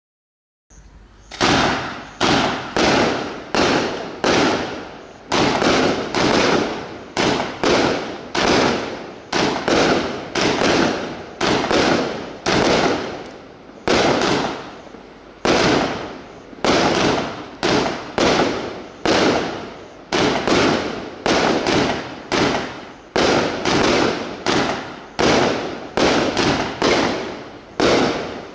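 Bright Star Pandora's Box 96-shot barrage cake firing: a rapid series of shots and aerial bursts, roughly two a second, each a sharp crack that trails off, beginning about a second in.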